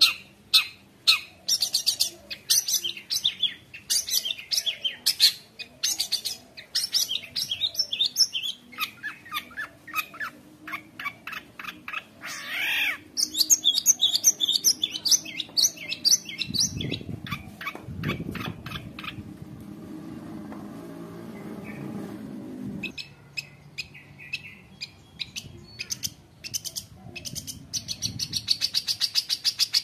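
Long-tailed shrike (cendet) singing a fast, varied song of sharp high chirps and trills, packed with mimicked calls of other birds. In the middle the high notes pause for several seconds under lower, rougher sounds, then the rapid chirping resumes.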